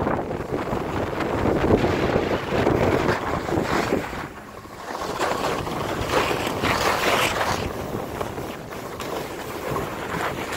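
Wind buffeting the microphone during a downhill ski run, with the hiss of edges sliding over packed snow that swells and fades with the turns; it dips briefly about four seconds in.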